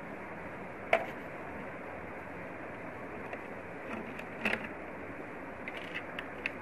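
Sharp clicks and taps of a hand screwdriver on screws and metal parts inside a projector, over a steady background hiss. The loudest click comes about a second in, another follows about halfway through, and a few small ticks come near the end.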